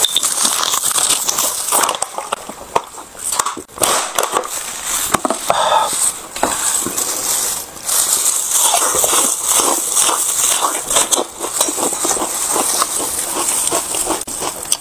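Close-miked crinkling of a plastic water bottle and plastic food gloves, then crisp crunching bites and chewing of a whole raw red onion.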